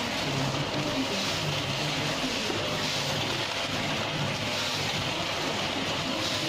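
Granulated sugar packing machine running: a steady mechanical noise with a high hiss that swells about every one and a half seconds, in step with its packing cycle.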